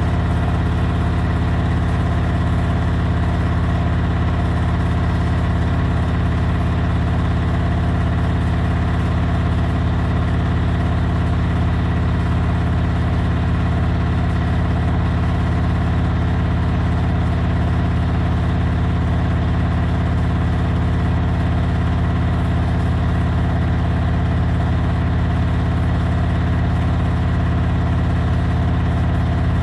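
Servis Gem M310 washing machine in its final spin, the drum and motor running steadily at high speed with a loud, unchanging hum of several tones.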